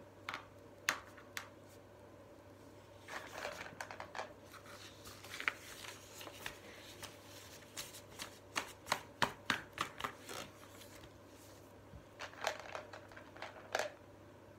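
Chunky plastic lacing beads clicking against each other as they are handled and threaded onto a cord: scattered sharp clicks, a busy run of rapid clicks in the middle, and a few more near the end.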